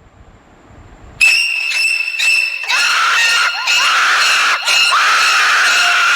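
Horror sound effect: a faint swelling hiss, then about a second in a sudden loud layer of high steady tones breaks in, with wailing cries sliding up and down in pitch over it.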